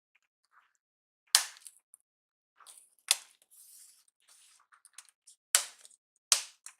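Replacement keyboard being pressed down into a Lenovo G50-80 laptop, its locking clips snapping into place in four sharp clicks, with softer clicks and rustling in between.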